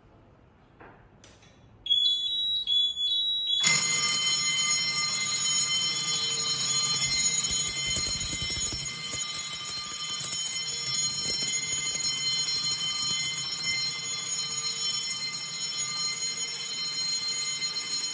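Fire alarm sounders going off during a system test. After a couple of faint clicks, a high pulsing beep starts about two seconds in, and a moment later a louder, steady shrill alarm of many high tones joins and carries on.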